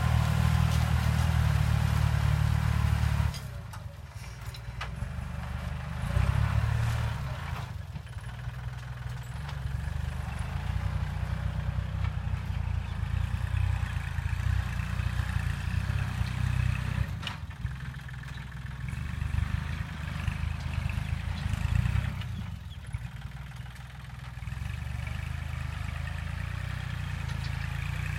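Kubota L3608 diesel farm tractor engine running, its low hum rising and falling with load. It follows a stretch of background music that ends about three seconds in.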